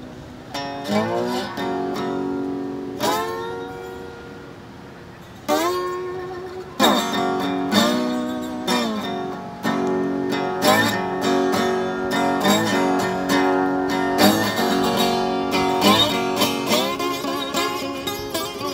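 Steel-string acoustic guitar with a capo, played solo. For the first several seconds single chords and notes are struck and left to ring, then from about seven seconds in it settles into a steadier, louder run of picked chords.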